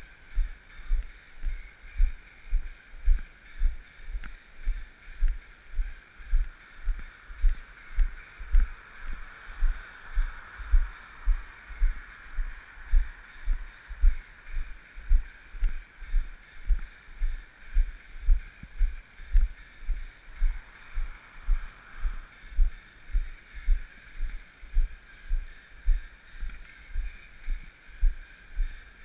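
Dull low thuds in a steady rhythm, about three a second: a runner's footfalls jolting the camera he carries as he runs.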